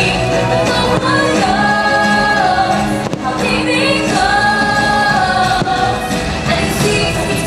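Fireworks-show soundtrack: music with singing voices and a choir, the singers holding two long notes.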